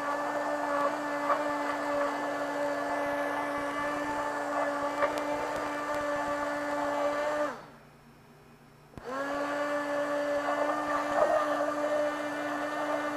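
Handheld immersion blender pureeing shrimp bisque in a stainless steel cup, its motor running with a steady whine. A little over halfway through it winds down and stops for a second or so, then spins back up and runs on.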